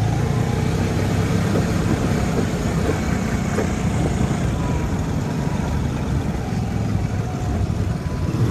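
Small motorcycle engine running steadily while riding at low speed, with a continuous low rumble.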